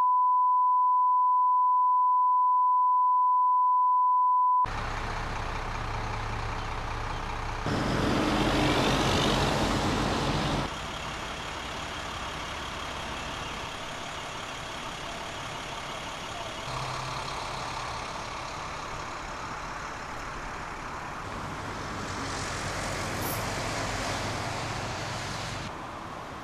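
A steady 1 kHz broadcast reference tone for about four and a half seconds, cut off abruptly. It is followed by outdoor road traffic noise, with a louder vehicle passing from about eight to ten seconds in.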